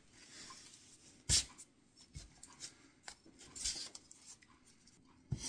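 Light handling sounds: faint rustling and scattered taps as small objects are picked up and set down, with one sharp knock about a second in and softer knocks later.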